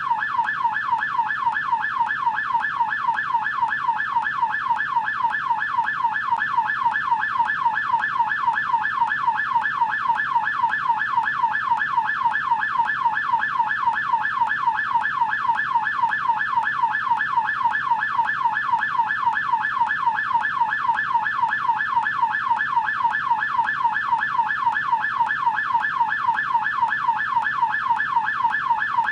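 US police car siren in yelp mode: one tone sweeping rapidly up and down, several times a second, steady and unbroken.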